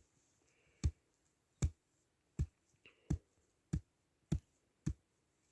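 A series of about eight short, sharp knocks, evenly spaced at roughly one every three-quarters of a second.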